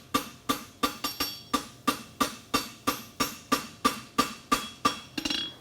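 Hammer blows on an anvil, steady at about three a second with a short metallic ring after each, as an aluminum horseshoe is flattened.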